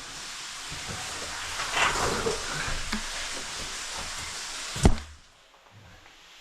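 Scuffing, scraping and small knocks of a caver clambering down a rock passage, with one sharp knock about five seconds in, after which it goes quieter.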